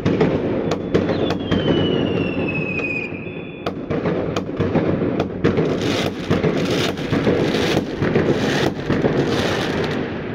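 Fireworks going off at close range: a dense run of sharp bangs and crackling. About a second in, a whistling firework sounds, falling in pitch for about two seconds.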